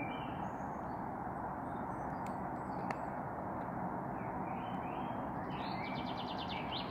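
Small birds chirping in short calls over a steady background hiss, with a rapid trill about six seconds in.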